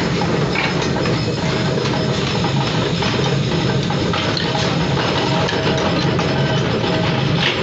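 Heavy mechanical forging presses running steadily, a continuous low machine drone from their motors and flywheels, with occasional light metallic knocks.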